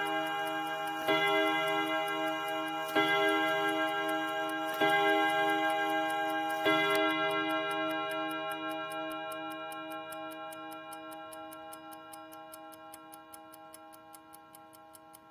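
Quarter-chiming clock movement striking the hour on its chime rods: four blows of the same note about two seconds apart. Each blow rings on, and after the last one, about seven seconds in, the ringing slowly dies away and the movement's steady tick is heard.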